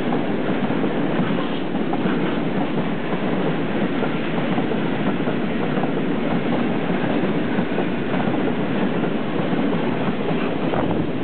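Tank wagons of a long freight train rolling past close by: a steady, loud noise of steel wheels running on the rails.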